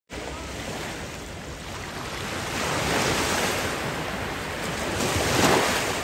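Small sea waves washing up and over a sandy beach, the surf swelling about halfway through and again near the end.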